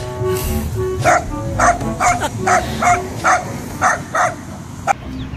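Small dog barking repeatedly, about two barks a second, over background music.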